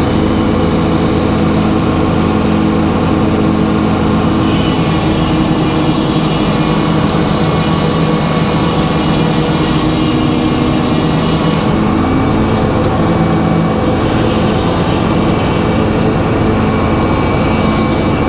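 Circular sawmill running steadily under power, with a hissing cut through the wood laid over the machine's steady hum from about four seconds in until about twelve seconds in.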